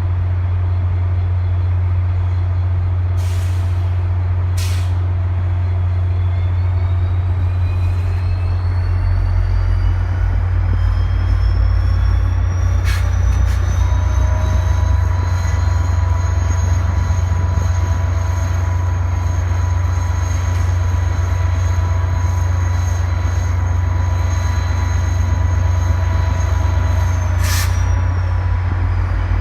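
VIA Rail passenger train with its diesel locomotive running: a deep steady rumble, short air-brake hisses, and a whine that climbs in pitch over about ten seconds and then holds steady.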